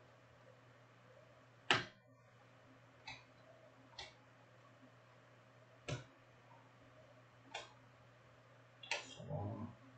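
Panini Prizm trading cards and their pack being handled as the pack is opened and the cards are gone through: about six short, sharp clicks and taps at irregular intervals, the loudest about two seconds in, over a faint steady hum.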